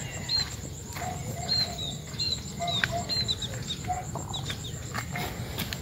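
Chickens clucking, with short, slightly falling high peeps repeating every half second or so, over a steady high-pitched trill.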